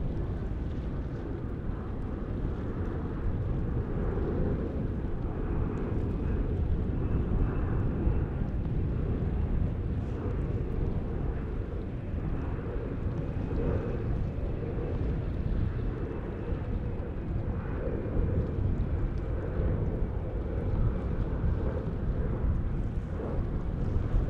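Jet airliner on approach to land: a steady low rumble of its engines, with a faint high whine through the middle.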